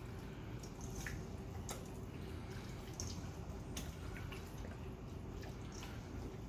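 Hands squeezing and turning raw chicken pieces coated in sauce and seasoning in a stainless steel bowl: scattered wet squelches and small clicks, over a faint steady hum.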